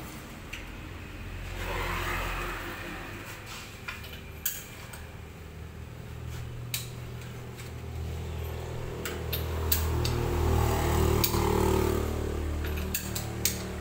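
Metal hand tools clinking and knocking in a jet ski's engine bay: irregular sharp clicks and taps. A low rumble builds underneath from about halfway through.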